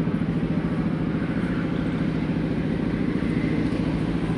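Jeep engine idling steadily, with a fast, even chug.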